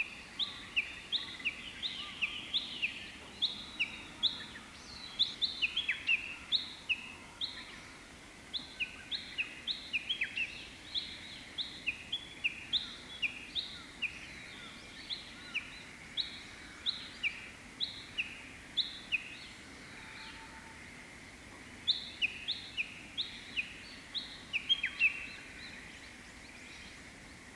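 Japanese bush warbler calling close by: a long run of short, sharp notes alternating between a higher and a lower pitch, two or three a second, with a brief pause about twenty seconds in.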